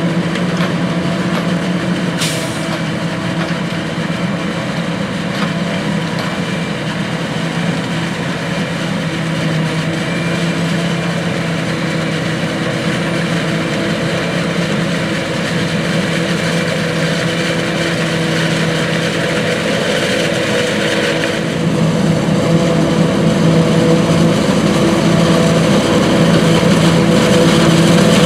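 John Deere 9600i self-propelled forage harvester running under load as it chops standing corn: a steady, loud machine drone of engine and cutterhead, blended with the truck driving beside it. It gets louder in the last several seconds.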